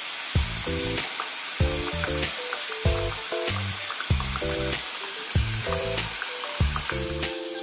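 Hot oil sizzling steadily as starch-coated chicken breast balls deep-fry in a pot, under background music with a steady beat.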